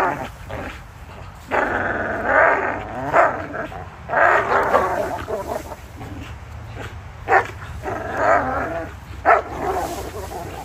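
Two Belgian Malinois growling in long bursts, with a few short sharp barks between them, while tugging and wrestling over a hanging rope toy.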